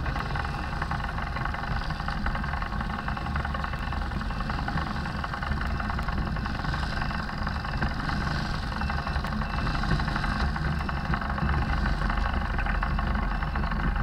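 Yamaha XT225's air-cooled single-cylinder engine idling steadily close by, with the engines of other motorcycles running nearby.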